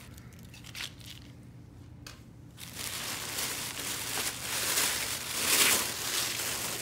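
Shiny plastic gift wrap and tissue paper crinkling and rustling as a package is unwrapped by hand. It starts after a couple of quiet seconds and is loudest near the end.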